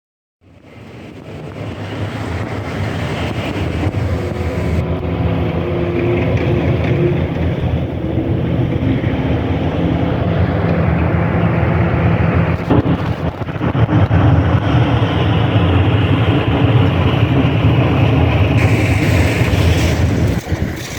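Heavy machinery's diesel engine running steadily in a low rumble at a demolition site, with wind on the microphone. It starts suddenly about half a second in.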